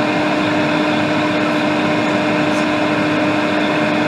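Steady fan hum with a constant low tone, unchanging throughout.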